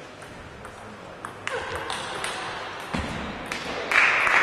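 Table tennis rally: the ball clicks sharply off the bats and table several times, a little under half a second apart, and applause breaks out near the end as the point is won.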